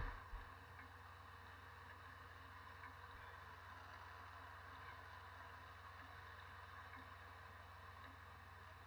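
Near silence: a faint steady hiss over a low hum, with a sharp thump at the very start and a smaller one just after.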